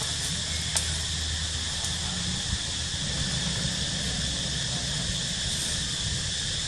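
Steady outdoor ambience: a constant high insect drone over a low rumble, with a sharp click about a second in.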